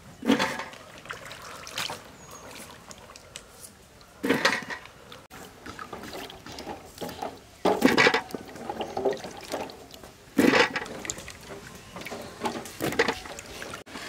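Water splashing and sloshing in about six short bursts, with quieter trickling between them.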